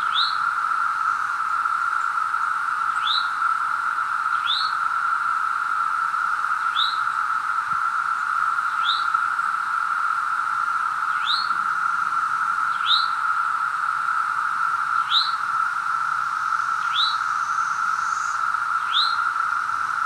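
Chorus of Brood II 17-year periodical cicadas: a loud, steady, unbroken drone. A bird's short falling chirp is repeated over it every second or two.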